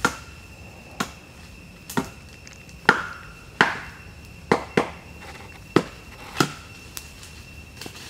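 A series of about ten sharp knocks, like chopping strikes, roughly one a second, some with a brief ring after them.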